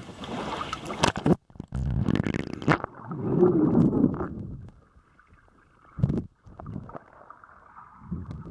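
A camera's microphone dunked into lake water: splashy water noise at the surface, then about a second and a half in the sound turns suddenly muffled, with loud low sloshing and gurgling for a few seconds. After that it goes quieter, with a faint steady hum and a couple of low thuds.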